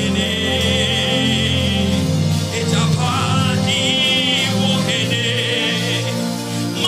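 Gospel worship music: a woman singing with a wavering vibrato, over sustained backing chords.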